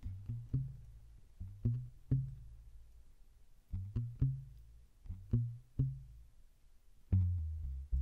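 Recorded music: a low plucked bass line of short notes in groups of three, each with a sharp attack and quick decay, ending on a longer held low note about seven seconds in.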